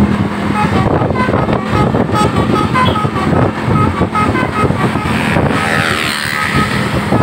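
Tour bus's multi-tone 'telolet' (Basuri) horn playing a quick melody of short notes that hop between pitches, over a running bus engine and traffic noise. The tune breaks off briefly about five seconds in and then resumes.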